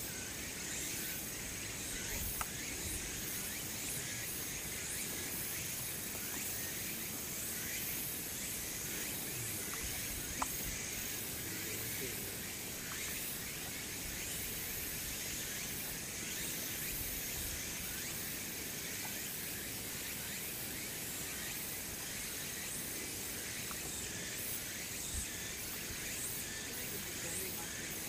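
Steady outdoor background noise, mostly a high hiss, with a sharp click about ten seconds in.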